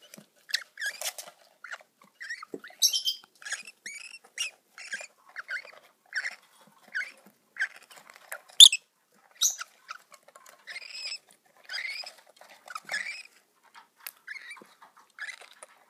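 Peach-faced lovebird chicks begging in the nest box with short chirps, a few a second, as their mother feeds them. One sharper, louder call comes about eight and a half seconds in.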